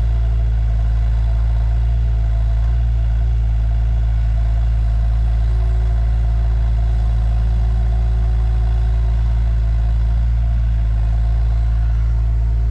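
Engine of a rented digging machine running steadily at a constant speed.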